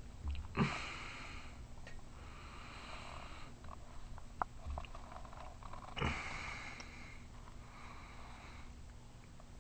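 Slow, noisy breathing close to the microphone: two breaths about five seconds apart, each starting sharply and followed by a softer, quieter breath.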